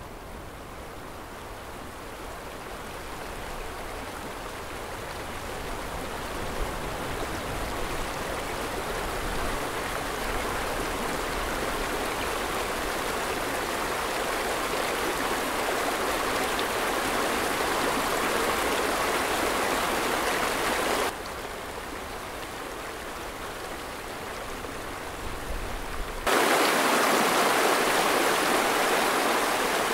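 Rushing river water, a steady full noise that slowly grows louder, drops suddenly about two-thirds of the way through, and comes back louder a few seconds before the end.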